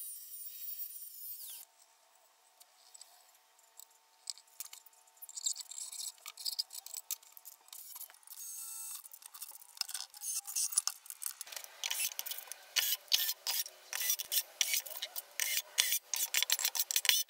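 Angle grinder cutting galvanised sheet metal, stopping abruptly after about a second and a half. After a quiet stretch comes intermittent drilling through the sheet-metal cover, then a dense run of short scraping and clicking metal-working noises over the last several seconds.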